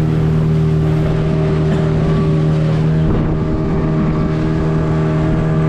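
Speedboat engine running steadily at an even pitch, with a brief rougher patch about three seconds in.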